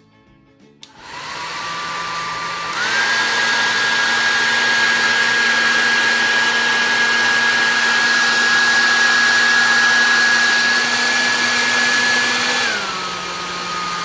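Pingo Qmini HR-1709 750-watt travel hair dryer with a DC motor, switched on with a click about a second in and running on its low speed. About three seconds in it steps up to its high setting, louder, with a steady whine over the rush of air. Near the end it drops back to the lower speed and pitch.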